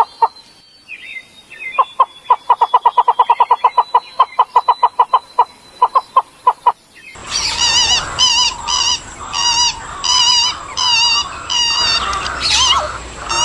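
Birds calling. First a bird gives a rapid run of short, low notes, in bursts of about five a second. About seven seconds in, a different recording takes over: a bird repeats a high, warbled phrase roughly every half-second over background hiss, with lower notes mixed in and a few short rising whistles near the end.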